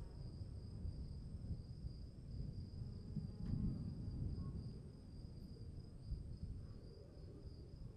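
Crickets chirring steadily as a night ambience, over a low rumble.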